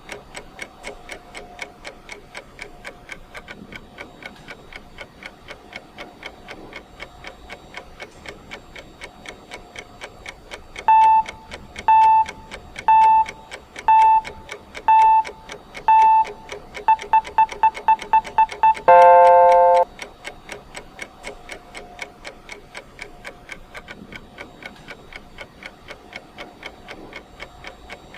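Timer's ticking-clock sound ticking steadily. About eleven seconds in, a single-pitch beep sounds once a second six times, then speeds up to about four beeps a second, and ends in a louder chord-like tone lasting about a second that marks the three-minute point of the countdown. The ticking carries on after it.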